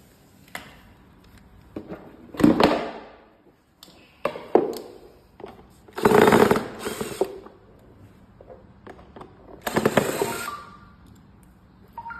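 Hand work on a go-kart's safety belt and its fittings: scattered sharp clicks and knocks, with four short rasping bursts about 2.5, 4.5, 6 and 10 seconds in, the third and fourth the longest.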